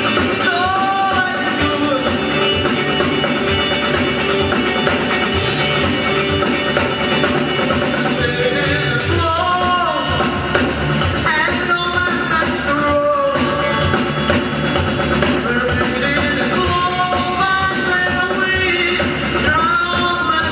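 A rock band playing a song, with a singer's voice carrying the melody over drums and guitar at a steady, full level.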